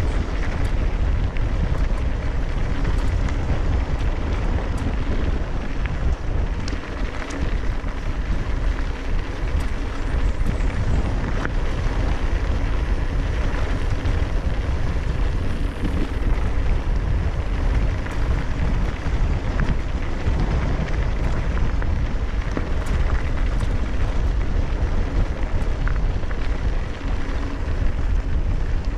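Wind buffeting the camera microphone on a fast mountain-bike descent: a steady, heavy low rumble mixed with tyre noise, and scattered small clicks and rattles from the bike.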